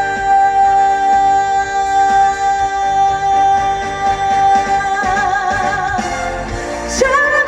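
Woman singing live, holding one long note for about five seconds over full instrumental backing, then starting a new phrase near the end.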